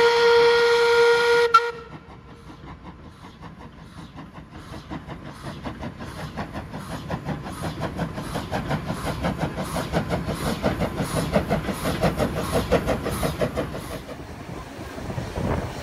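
Steam locomotive NM25's whistle sounds one loud blast, cut off sharply about a second and a half in. Then comes the locomotive's exhaust, a fast, even chuffing that grows steadily louder and drops back near the end.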